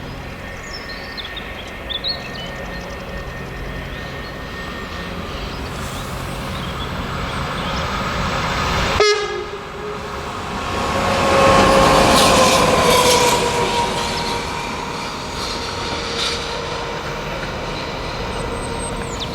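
Train running along the track. After an abrupt cut about halfway, a train passes sounding a long horn whose pitch drops a little as it goes by, over the rumble and hiss of its wheels.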